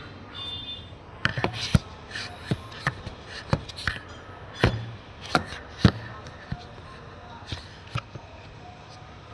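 Tools and metal parts being handled during washing machine gearbox work: a run of sharp, irregular taps and clicks, thickest in the first half and thinning out near the end.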